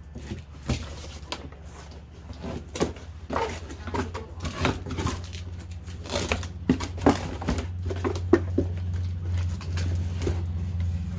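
Scattered knocks, clicks and rustles of objects being handled, over a steady low hum.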